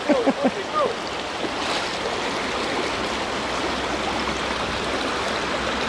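Creek water rushing steadily, a strong current flowing past, with a few short gliding chirps and clicks in the first second.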